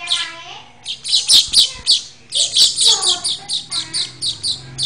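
Manyar weaver bird chirping in a rapid run of short, sharp notes, about four or five a second, starting about a second in.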